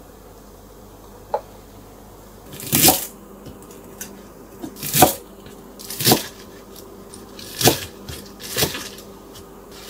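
Kitchen knife cutting through a bunch of mizuna stalks on a wooden cutting board: five separate cuts, one every second or two, preceded by a light click about a second in.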